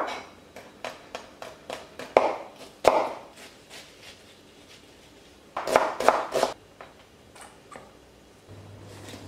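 Chef's knife chopping on a plastic cutting board, mincing garlic and then cutting a red onion: a run of quick light taps, a couple of heavier cuts, and a cluster of strong chops about six seconds in.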